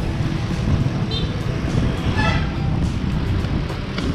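Steady wind rumble on a moving bicycle's camera microphone, with road traffic from cars and jeepneys around it.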